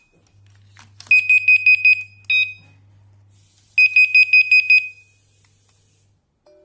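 WP6 alarm system base unit sounding its alarm-clock tone: two runs of rapid high-pitched beeps, about eight a second and each lasting about a second, with a short, different beep between them. A faint low hum runs underneath.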